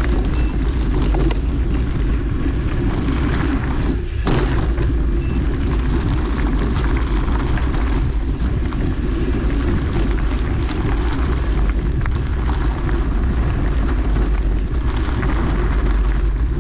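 Steady wind rumble on the microphone while riding a mountain bike, with tyre noise from the trail underneath.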